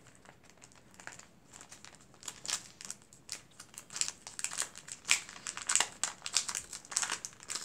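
Clear plastic bag of a Tim Holtz ephemera pack crinkling as it is handled and pulled open. The crackles are sparse at first and grow busier after about two seconds.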